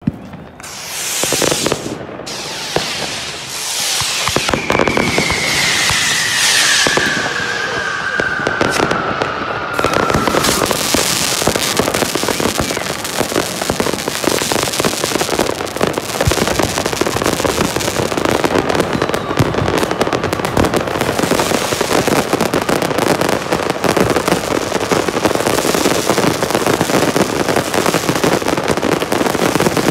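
Fireworks: several rockets whooshing up in the first seconds, with a long whistle falling in pitch. From about ten seconds in they give way to a dense, continuous barrage of crackling and banging.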